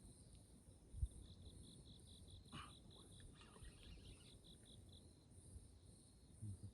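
Faint insects chirping: a steady shrill buzz with a pulsed chirp over it, about three or four pulses a second, which stops about five seconds in. A single low thump comes about a second in.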